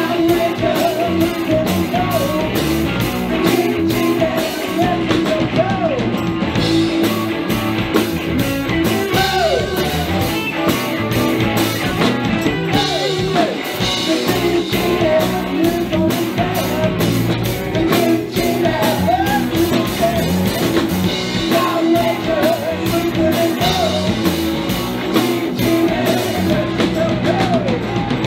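A live rock band playing: electric guitars, bass and a drum kit keeping a steady beat, with a singer's voice over the top.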